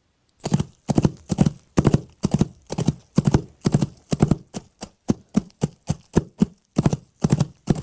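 Horse hooves at a gallop: quick clusters of hoofbeats in a rolling, even rhythm, starting about half a second in. This is the hoof layer of a layered galloping-horse sound effect.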